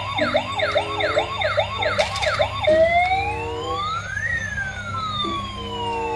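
Electronic toy siren, a fast wail-and-yelp warble rising and falling about two and a half times a second. About a third of the way in it switches to one long slow rise and fall. A simple beeping tune plays underneath.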